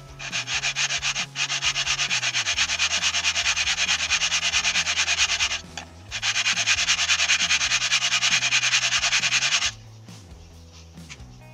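A camshaft bearing cap being rubbed back and forth on abrasive paper in quick, even strokes, in two runs with a short pause between them, stopping about two seconds before the end. The cap is being lapped down to take up the play of a loose camshaft bearing that was causing the camshaft to knock.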